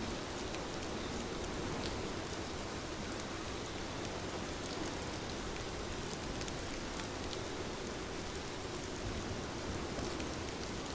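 Steady rain falling, a constant hiss with scattered individual drops ticking.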